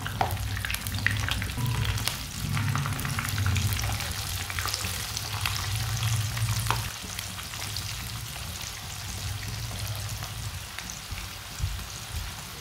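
Flour-coated potato sticks frying in hot oil in a pan, freshly dropped in: a steady sizzle with many small scattered pops. A low hum runs underneath, stronger in the first half.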